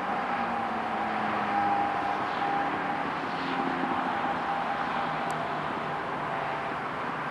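Distant Boeing 757-300 jet engines at takeoff power during the takeoff roll, a steady rushing noise with a faint steady whine, mixed with road traffic passing on a nearby highway.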